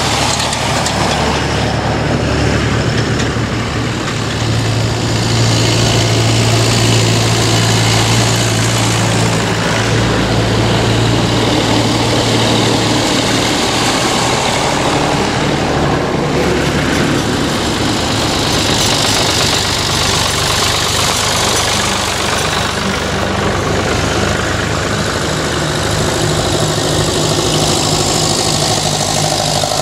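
Several vintage tractors, red Massey Fergusons and a grey Ferguson, drive past one after another with their engines running; the steady low engine note shifts a few times as one tractor goes by and the next comes up.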